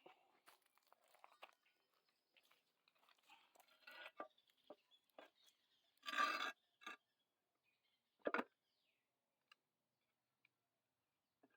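Quiet handling noises: scattered faint clicks and rustles, with a louder noise lasting about half a second around six seconds in and a short sharp knock a little after eight seconds. No grinder is running.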